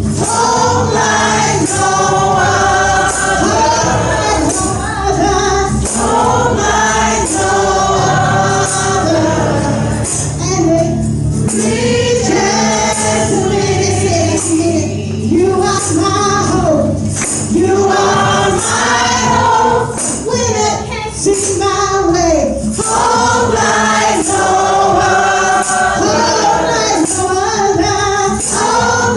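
Gospel praise-and-worship song: a choir singing over a band, with a tambourine shaken on every beat.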